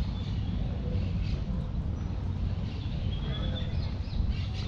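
Park ambience: birds chirping in short high calls over a steady low rumble.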